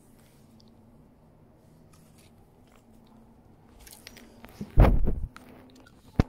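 A phone being handled and repositioned right at its microphone: a burst of rustling and knocking about five seconds in, then a sharp click near the end.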